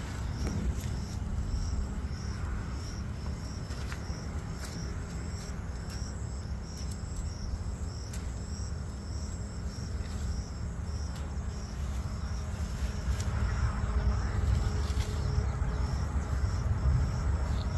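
An insect, cricket-like, chirping in a steady rhythm of short high chirps about twice a second, over a constant low rumble with a few brief rustling clicks.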